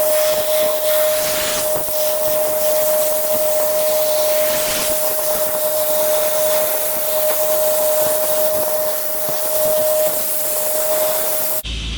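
Sandblaster nozzle blasting abrasive at a steel wheel rim: a loud, steady rushing hiss with a constant whistling tone through it. The blaster runs on without letting up because its dead man switch is stuck on.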